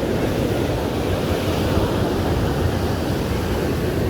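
Steady wash of ocean surf on a sandy beach, mixed with some wind noise on the microphone.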